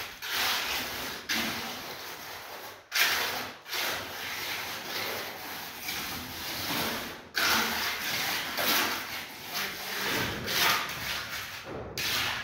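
Hand trowel rubbing and scraping over wet concrete in repeated back-and-forth strokes, smoothing a freshly poured kitchen slab. The strokes are broken by a few short pauses.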